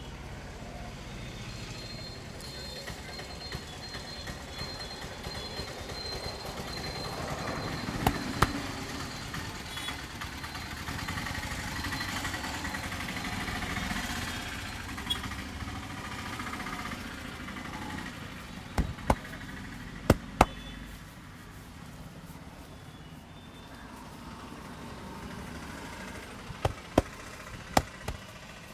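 Sharp hand slaps from a head massage, mostly coming in pairs a few seconds apart and clustering near the end, over steady street traffic noise.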